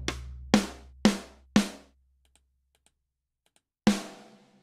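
Sampled acoustic tom hits from a drum sampler (Steven Slate Drums 5), triggered from Maschine pads. There are four single strikes about half a second apart, each sounding once and ringing out. That one note per hit, instead of a doubled machine-gun retrigger, shows poly pressure has been switched off. After a pause with a few faint clicks, one more drum hit near the end rings out.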